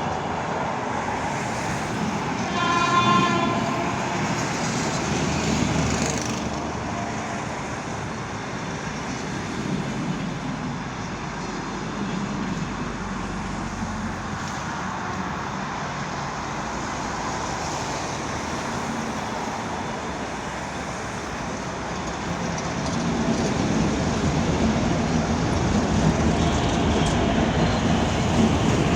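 A train running with a steady rumble that grows louder over the last several seconds as it draws close. About three seconds in, a locomotive sounds one short signal blast.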